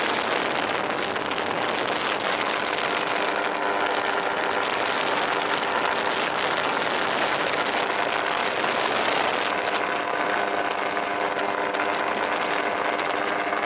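FOX V4 ultralight aircraft's engine and propeller running steadily in cruise flight, under a heavy rush of wind over the microphone. The engine's steady hum comes through more plainly in the last few seconds.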